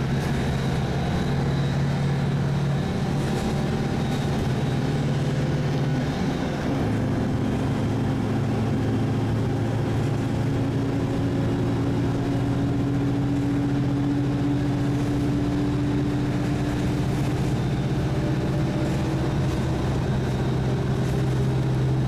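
Engine and road noise of a moving car heard from inside the vehicle, a steady hum. The engine note changes about six seconds in, then slowly rises.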